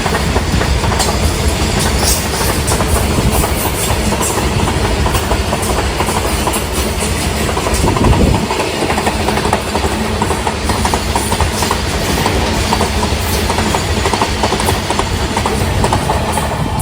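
Indian Railways express train passing through the station at speed: a loud, steady rumble of coaches with rapid clicking of wheels over the rails, swelling briefly about eight seconds in.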